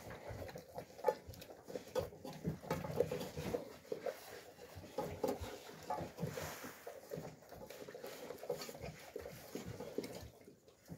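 Alabai (Central Asian Shepherd) dogs eating from bowls: an irregular run of chewing, smacking and slurping sounds.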